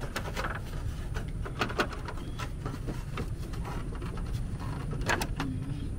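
Scattered light clicks and knocks from hands pulling at a pickup's grille and headlight trim to work them loose, over a steady low rumble.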